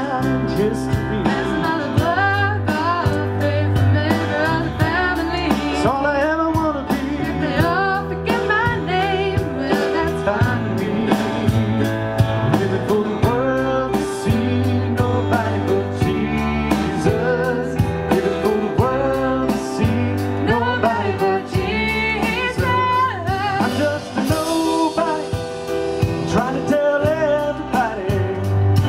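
Worship band playing a song: a singer over guitar, bass and drums, with a steady beat.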